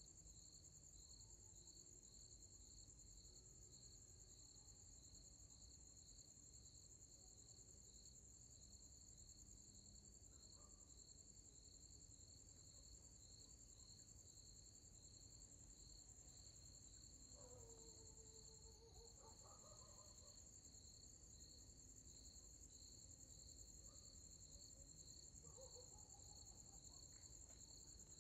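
Faint night chorus of crickets: one steady, unbroken high trill, with a second, lower chirping that pulses at an even rhythm of roughly two chirps a second. About two thirds of the way through comes a faint distant call of several stacked tones.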